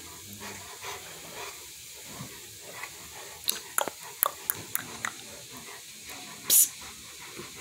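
A Rottweiler moving about the room, with a run of light, sharp clicks in the middle and a single short, hissing snort about six and a half seconds in.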